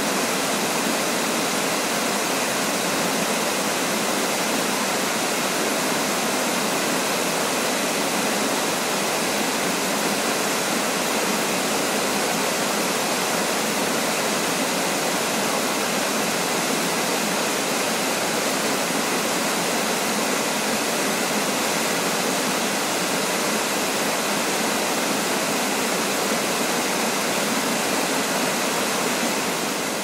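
Inversnaid Falls waterfall: water falling steadily, an even hiss with little deep rumble.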